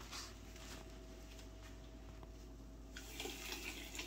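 Powdered washing soda poured from a measuring cup into a bucket of water: a soft hiss that starts about three seconds in.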